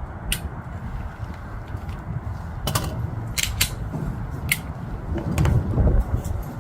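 About five handgun shots fired at irregular intervals, heard as sharp cracks, several of them close together in the middle. Wind buffets the microphone throughout as a low rumble.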